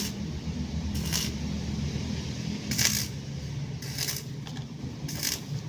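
Short, bright metallic clinks, five of them about a second and a half apart, over a steady low mechanical hum.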